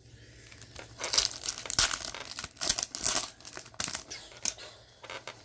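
Plastic-foil hockey card pack wrapper crinkling, in irregular crackles as the pack is handled and opened.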